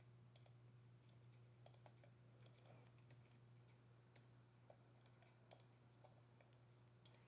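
Near silence: faint computer mouse clicks and a few keyboard keystrokes over a low steady hum.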